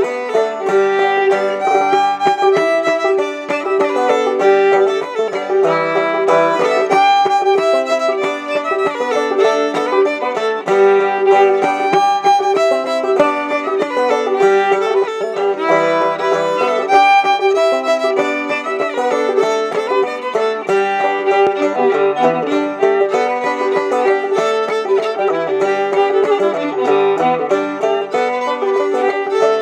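Old-time fiddle and clawhammer banjo duet, playing a tune continuously.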